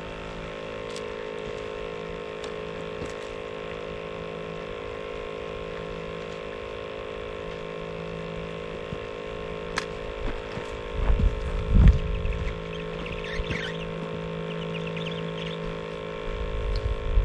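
A steady hum made of several even tones, with low rumbles from about eleven seconds in and a few short, faint high chirps near the end.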